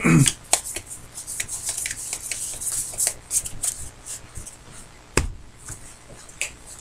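Trading cards being handled and flipped through by hand, giving light, quick clicks and rustles. There is one louder knock about five seconds in.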